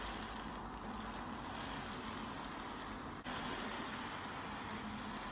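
Steady hiss of background room noise, with a sudden small jump in level about three seconds in.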